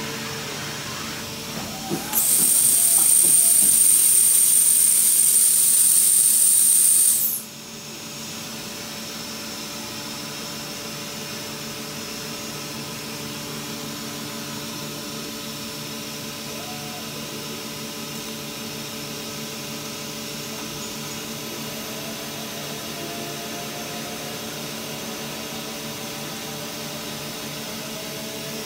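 Mazak INTEGREX 200-IV mill-turn lathe running with a steady machine hum. About two seconds in, a loud high hiss like a compressed-air blow sounds for about five seconds and cuts off sharply. Later, faint whines rise and fall as the machine's axes traverse.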